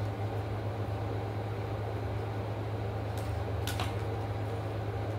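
A steady low mechanical hum fills the room, with two brief clicks a little past three seconds in from eating with a utensil at a food container.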